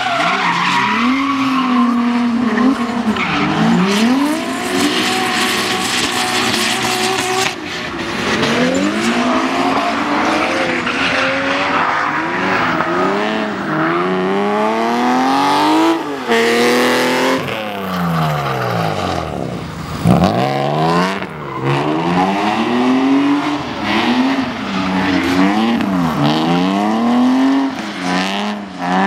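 Drift cars' engines revving hard, the pitch climbing and dropping over and over as the throttle is worked through the slides, with tyre squeal from the sliding tyres.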